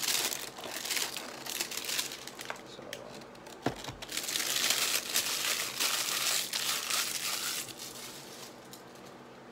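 Clear plastic packaging crinkling and rustling as it is pulled out of a cardboard box, loudest at the start and again in the middle. A single sharp knock a little over a third of the way in as the box is set down on the desk.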